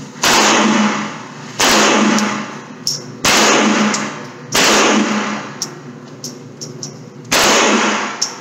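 Five gunshots from a firearm, fired at uneven intervals, each loud crack followed by a long echoing tail, with a longer pause before the last shot. Faint ticks are heard between the shots.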